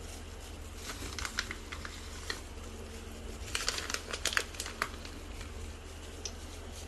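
Light clicking and crinkling handling sounds as raw fish slices are laid one by one into a pot, in two clusters: about a second in and from about three and a half to five seconds in. A steady low hum runs underneath.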